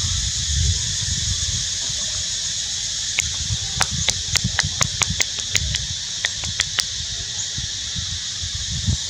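Steady high-pitched drone of forest insects. In the middle, a run of about fifteen sharp clicks, three or four a second, over a low rumble.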